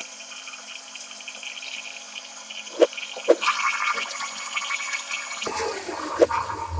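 Electric blender running with a steady whir as eggs and oil churn inside, emulsifying into mayonnaise. A few sharp clicks sound over it, and a low rumble joins in near the end.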